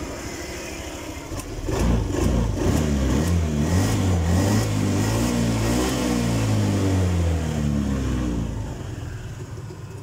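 Honda BeAT scooter's single-cylinder engine idling, then revved up with the throttle about two seconds in, held high for several seconds and let back down to idle near the end. The mechanic places a noise in it in the CVT and takes it for worn sliders that need replacing.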